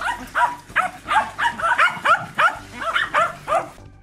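Dogs yapping in quick, high-pitched barks, about three or four a second, stopping shortly before the end.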